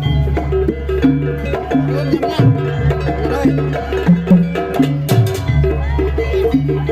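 Jaranan accompaniment music: a Javanese percussion ensemble with hand-drum strikes over short, repeating pitched notes and a sustained low tone, playing continuously.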